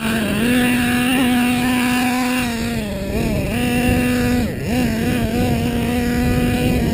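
Small two-stroke engine of a radio-controlled off-road car running at high revs, a steady buzzing whine that dips in pitch briefly twice around the middle as the throttle is eased and picks back up.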